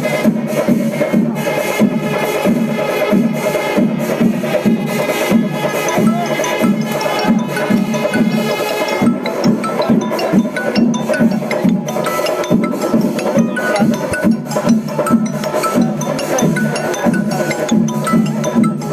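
Music with a steady percussion beat and held pitched tones; the held tones drop away about nine seconds in while the beat carries on.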